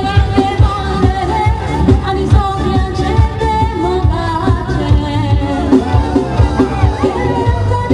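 A girl singing a song into a handheld microphone over amplified musical accompaniment with a steady drum beat.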